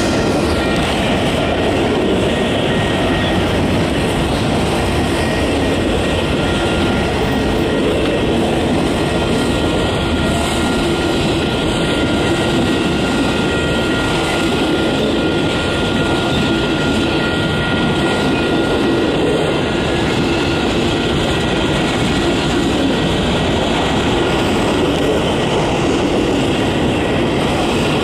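Freight train's autorack and tank cars rolling past close by: a steady, loud rumble and rattle of steel wheels on the rails, with a faint steady high tone above it.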